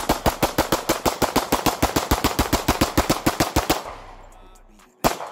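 Two Glock pistols, a Glock 23 and a Glock 26, fired together in rapid fire, about eight shots a second for nearly four seconds. The firing stops with an echo trailing off, and one more single loud shot comes near the end.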